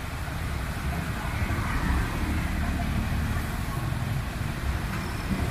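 Street traffic: a steady low rumble of vehicles running past, with a faint haze of background noise.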